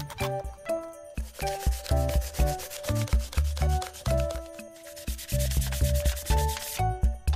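A sanding pad rubbed back and forth over thin metal from a squeeze tube: quick scraping strokes in two bouts, one from about a second in to about four seconds, the other near the end. Background music with a bass line plays throughout.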